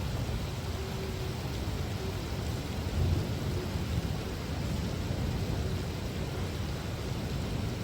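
Heavy rain pouring steadily, with a low rumble under it and a brief louder swell about three seconds in.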